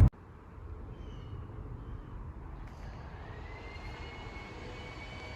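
Faint, steady distant engine rumble, with a thin whine that rises about halfway through and then holds steady.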